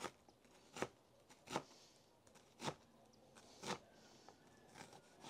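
A kitchen knife dicing onion on a plastic cutting board: soft, separate knocks of the blade on the board, about one a second.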